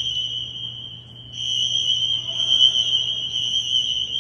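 Building fire alarm sounding a loud, steady high-pitched tone. It dips briefly about a second in, then holds.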